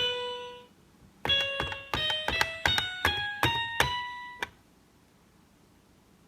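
Teletubbies toy keyboard's electronic keys pressed one at a time: one note fades away, then after a short pause a run of about eight separate beeping notes that cuts off suddenly.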